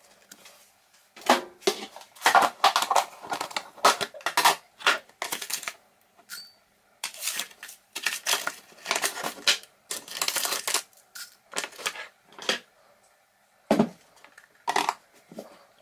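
Handling sounds of a mug of tea being made: a run of short irregular clicks, taps and rustles as a tea bag and sugar go into a ceramic mug, with one short high ring about six seconds in.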